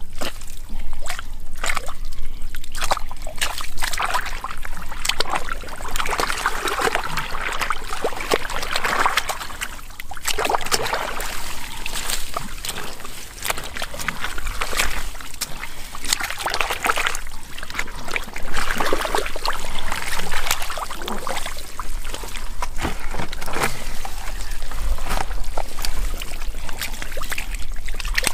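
Shallow muddy water splashing and sloshing, with many short, irregular splashes, as it is worked through by hand.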